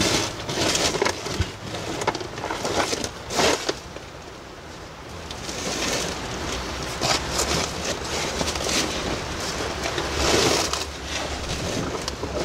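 Irregular scuffing, scraping and rustling of a person crawling down into a cramped hole in a stone bridge, with the handheld camera's microphone picking up handling noise. There is a quieter spell around four seconds in.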